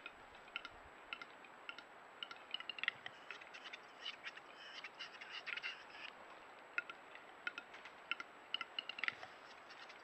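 Western capercaillie at the lek: a string of short, dry clicks, spaced out at first, bunching into a dense run around the middle and quickening again near the end.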